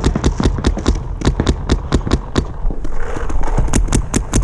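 Paintball marker firing rapidly, a steady stream of sharp pops at about five shots a second.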